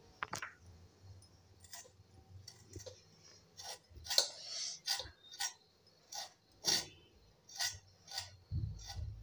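Potato being peeled against the fixed curved blade of a boti: a series of short, irregular scraping strokes.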